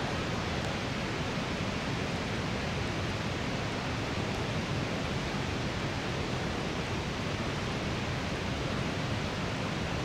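Steady rush of a shallow river flowing over rocks, an even, unchanging wash of water noise.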